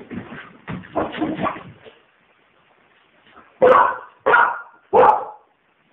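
Pit bull puppy giving three short, loud barks in quick succession, a little past halfway. Before them come a couple of seconds of softer scratchy sounds.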